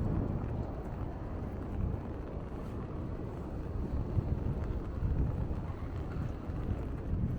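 Wind buffeting the microphone, a low uneven rumble that swells and dips, over outdoor street ambience.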